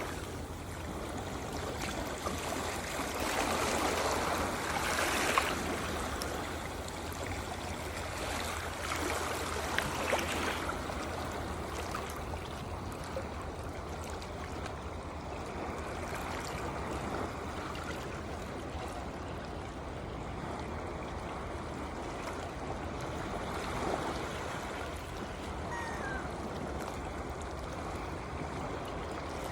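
Sea waves washing and splashing close by, a continuous rush of water that swells twice in the first ten seconds, each swell ending in a sharp splash, then settles to a steadier wash.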